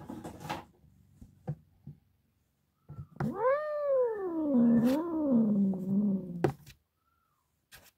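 Grey tabby cat giving one long, drawn-out yowl lasting about three seconds, rising then falling and wavering in pitch: the grumbling call of an annoyed cat. A few soft knocks come before it, near the start.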